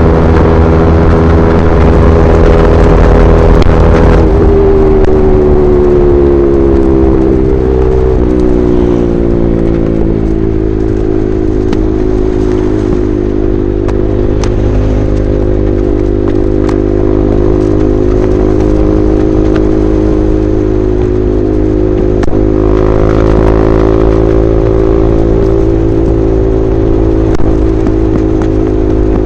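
KTM RC 390's single-cylinder engine running through an SC Project replica slip-on exhaust at highway speed. The engine note falls about four seconds in and steps down again around eight and ten seconds, then holds steady while cruising.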